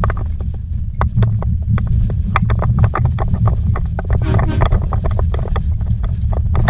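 Vehicle driving fast over a rough, rocky dirt trail, heard from inside the cabin: a steady low rumble of engine and tyres, broken by many irregular sharp knocks and rattles as it hits bumps and stones.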